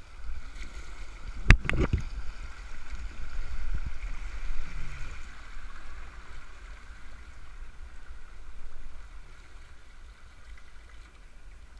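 Rushing water of a shallow rocky rapid around a canoe, with a low rumble on the microphone. Two sharp knocks in quick succession about a second and a half in are the loudest sounds, and the rushing eases toward the end as the channel calms.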